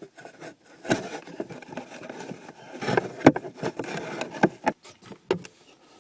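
Plastic cabin air filter cover and housing being handled: several sharp clicks and knocks with scraping and rubbing in between.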